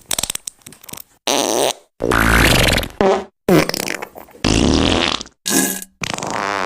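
A rapid string of diarrhea fart sound effects, about eight in a row, each cut off abruptly: some wet and sputtering, others pitched and sliding up and down, the last one held longer.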